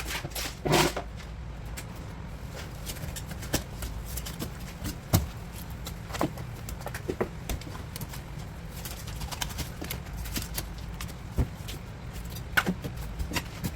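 Irregular knocks and clicks of a knife and fish being handled on a cutting board during fish cleaning, over a steady low hum.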